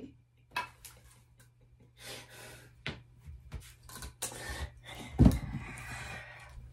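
Movement and handling noise close to the microphone: scattered soft knocks and clicks, rustling and breaths, with one heavy thump a little past five seconds in, over a faint steady hum.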